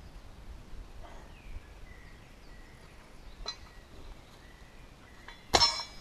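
A loaded EZ curl bar is set down on the forest floor, its weight plates giving one sharp metallic clank with a short ring about five and a half seconds in, after a lighter clink midway. Faint birdsong in the background.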